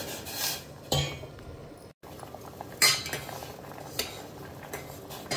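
A steel spoon clinking and scraping against the inside of a stainless steel saucepan while stirring amla pieces simmering in brine. There are a few sharp clinks: about a second in, near three seconds and about four seconds in, with lighter taps after.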